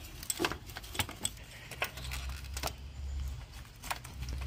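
Scattered light metallic clicks and clinks of a transmission dual linear solenoid valve being pried and worked loose from its mounting on the transmission. A low rumble runs under the second half.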